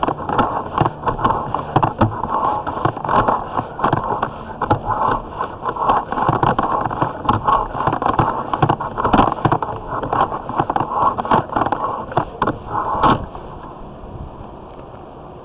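Sewer-scope camera push cable scraping and clattering in irregular rapid clicks as it is worked in the corroded cast-iron drain line. It stops abruptly about 13 seconds in, leaving a steady hiss.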